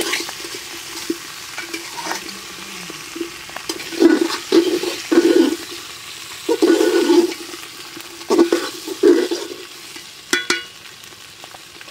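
Metal spatula scraping and stirring vegetables in an aluminium pot over a steady sizzle of frying oil, as pumpkin, spinach, capsicum, potatoes and soya chunks are sautéed. The scraping strokes come in clusters, most between about four and nine seconds in, with a few sharp clicks near the end.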